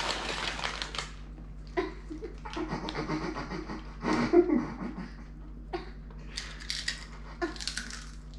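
A paper chip bag rustling while chips are taken out, with a young girl laughing in the middle, loudest a little past four seconds in.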